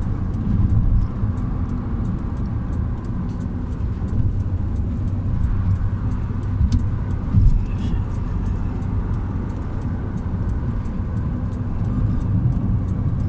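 Steady road and engine noise of a car driving at highway speed, heard from inside the cabin, with one brief louder bump about seven seconds in.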